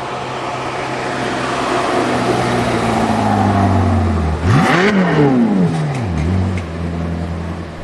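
Sports car engine running at low revs and building, then revved sharply about four and a half seconds in, the pitch shooting up and dropping back in a couple of quick swoops before settling to a steady rumble.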